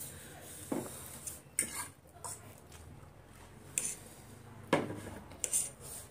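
Metal forks clinking and scraping against plates of noodles as two people eat, in a handful of separate short clinks.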